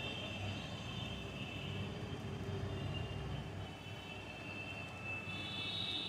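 Steady low mechanical hum with a faint high-pitched whine over it.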